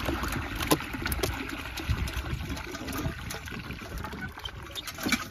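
Water splashing and trickling off an empty freon-cylinder fishing float as it is lifted out of the lake beside a boat, with a few light knocks.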